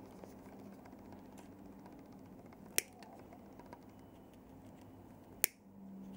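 Small parts of a GLO Hyper X2 device being handled during disassembly: two sharp clicks about two and a half seconds apart, with a few faint ticks between them, over a steady low hum.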